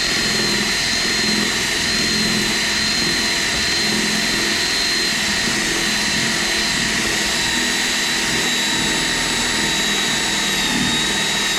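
Power drill running steadily with a 1-1/8-inch Forstner bit, boring a hole through a Miata's side trim panel. A high, slightly wavering motor whine sits over a steady cutting noise.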